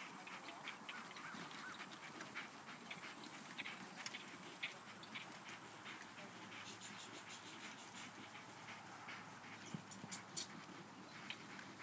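Faint outdoor ambience: a steady thin high-pitched hum under scattered light ticks and clicks, with a few sharper clicks near the end.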